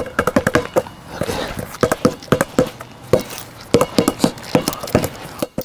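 Wilson basketball dribbled low on concrete with the left hand: quick, uneven bounces, a few a second, each with a brief ringing note.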